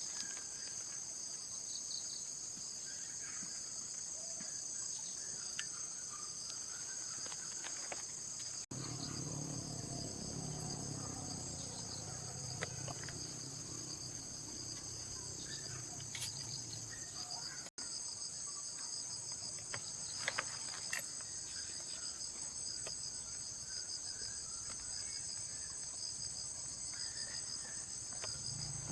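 Steady, high, finely pulsing insect chorus, with scattered faint clicks and taps.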